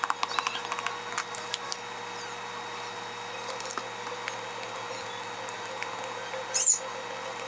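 A fork and a baby spoon clicking and scraping on a divided baby plate while food is mashed and separated, with a quick run of taps at first and then sparser ones over a faint steady hum. A brief sharp, high scrape about six and a half seconds in is the loudest sound.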